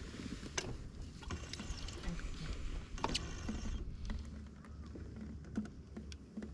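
Scattered light clicks and knocks of fishing gear being handled on a boat deck, over a low steady rumble.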